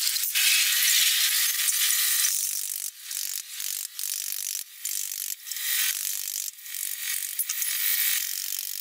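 Mechanical power hammer beating a steel hoe blade, a fast clattering rattle of blows that comes in short bursts, stopping and restarting about every half second. The first couple of seconds are a steady machine noise instead.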